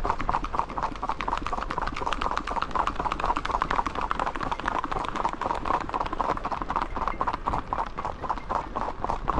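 Horse's hooves clip-clopping on an asphalt road at a quick, even pace, with more horses moving along just ahead.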